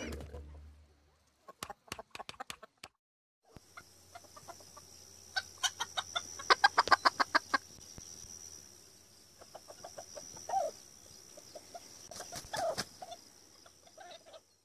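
A rooster giving a fast run of short, clipped clucks that sounds like laughing, about seven a second for two seconds, followed later by a few single calls. A steady high hiss sits under it, and a few sharp taps come before.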